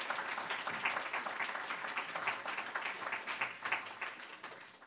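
Audience applauding, a dense spread of many hands clapping that dies away near the end.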